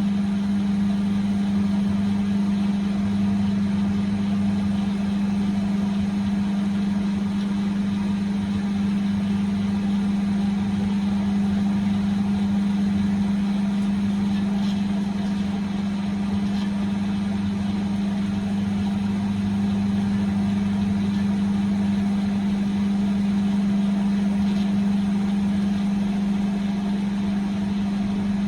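Microwave oven running, heating a whole raw egg: a steady, even hum that holds the same level throughout.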